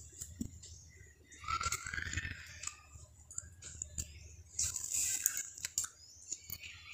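Hands turning and rubbing wet eggplant slices in water on a ceramic plate: faint wet squishing with light clicks against the plate, in two short spells.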